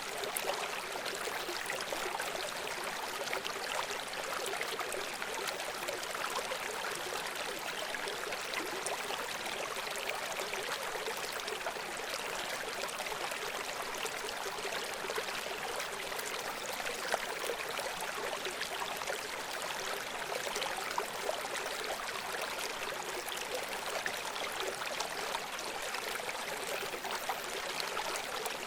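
A shallow river or stream running over rocks, a steady rushing and splashing of water with small gurgles.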